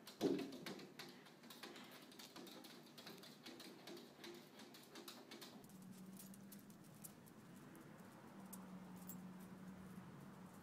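Cat's claws scratching and clicking against a glass door: a soft thump at the start, then a run of quick faint clicks for about five seconds. After that, a faint steady low hum.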